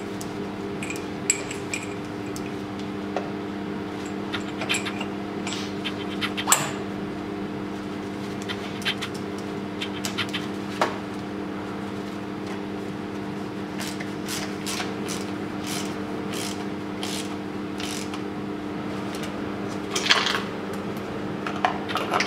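Hand tools clicking and clinking on the cylinder head of a 2.0 TDI diesel engine as a ratchet and wrench take out one fitting and screw in a compression tester's adapter, with a few sharper metal knocks. A steady low hum sits underneath.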